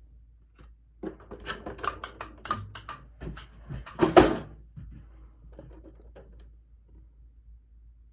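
Cardboard collection-box packaging being handled and opened: a run of taps, clicks and rustles, with a louder scrape about four seconds in and a few softer rustles after.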